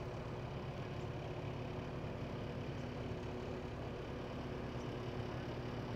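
An engine idling steadily, a constant low hum with a few held tones.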